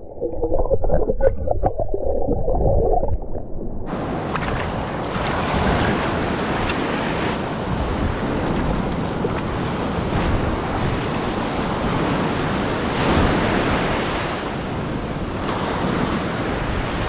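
Muffled underwater sound of water moving around for the first few seconds. Then, about four seconds in, it switches to shallow beach surf breaking and washing over the sand, with wind on the microphone.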